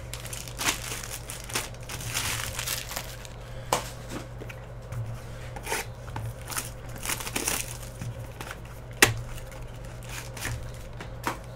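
Crinkling and tearing of a trading-card pack's wrapper and cardboard as a Super Break pack is torn open by hand, in irregular rustles, with one sharp snap about nine seconds in.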